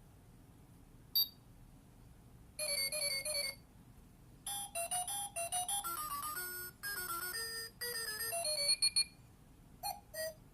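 Digital LCD projection alarm clock sounding its electronic alarm: a single short beep, then about a second of warbling trill, then a simple beeping tune of stepped notes lasting about four and a half seconds, with two short beeps near the end.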